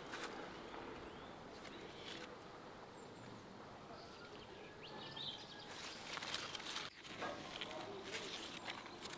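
Quiet garden ambience with a few faint bird chirps; from about six seconds in, fig leaves and branches rustle as the fruit is picked.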